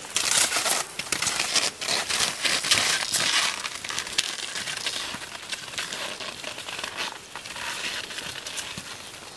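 Touring skis with climbing skins sliding and crunching over crusty snow, with pole plants: a crackling, crunching noise full of small clicks, choppier and louder in the first few seconds, then settling into a steadier, fainter hiss.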